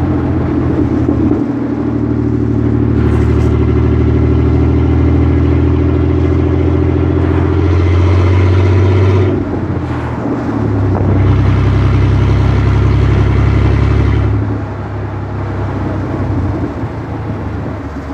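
Chevrolet Blazer's 4.3-litre V6 pulling hard, its pitch rising slowly through one gear. It dips briefly at a gear change about nine seconds in, pulls again, then eases off about fourteen seconds in.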